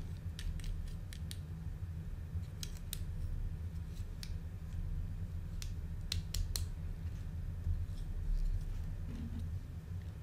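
Lego plastic bricks being handled and pressed together: sharp, irregular clicks and snaps, over a steady low hum.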